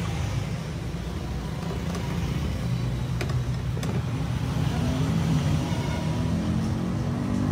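Motor vehicle engine running, a low drone whose pitch rises in the second half, with two light clicks about three seconds in.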